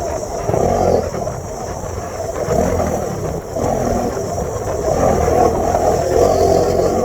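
Bajaj Dominar 400 UG motorcycle's single-cylinder engine running, its sound rising and falling in level.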